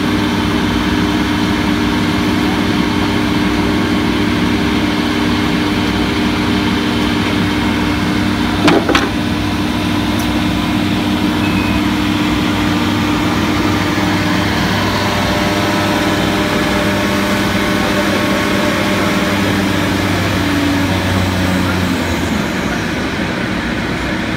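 Woodworking machining center for window and door parts running steadily, a humming drone of motors with several held tones. A short knock comes about nine seconds in, and most of the tones stop a couple of seconds before the end.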